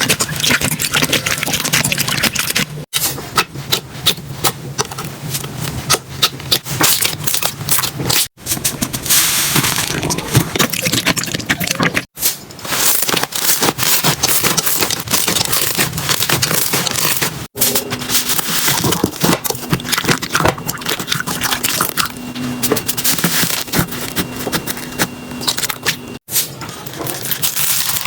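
Slime being squeezed, poked and stretched by hand, giving a dense run of sticky crackles, pops and clicks. Short clips are cut together, with a brief silence between them about every four to nine seconds.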